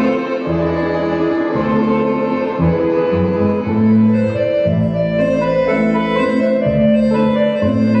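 Instrumental music: slow held melody notes on bowed strings over a bass line that moves from note to note.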